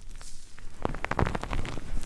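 Close-miked ASMR trigger sounds: a quick run of soft clicks and crackles, thickest about a second in.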